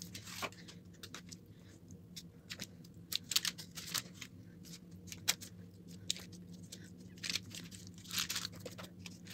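Baking paper crackling and rustling in many short crackles as hands lay a sheet of hand-stretched dough over the filling in a baking tray and press it flat.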